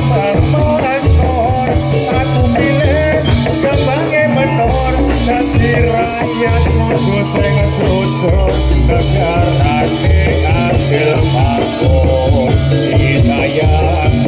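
Live jathilan accompaniment music from a Javanese gamelan-style ensemble, with a steady, loud low beat under a wavering melody.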